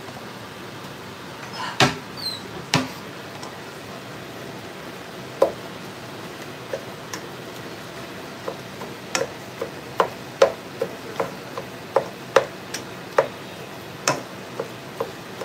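Silicone spatula knocking and scraping against a frying pan as ground beef and sliced sausage are stirred and broken up, over a steady sizzle of frying meat. The knocks are irregular, a few at first and coming faster in the second half.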